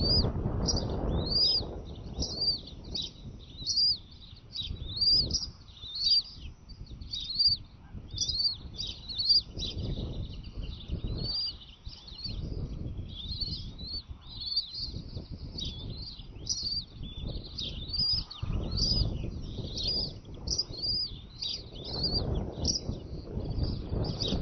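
Bald eagle chicks peeping: a steady run of short, high, rising-and-falling chirps, about two a second, the begging calls of hungry eaglets. A low rumbling noise comes and goes underneath.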